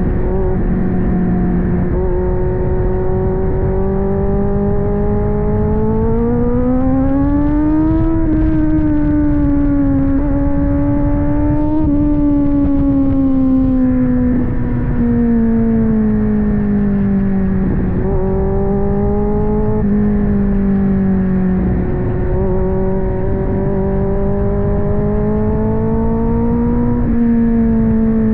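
Kawasaki Z900's inline-four engine running through an aftermarket AR exhaust while riding. The engine note climbs under throttle to a peak about eight seconds in, then falls away slowly, with a few brief dips and a gentle rise again near the end.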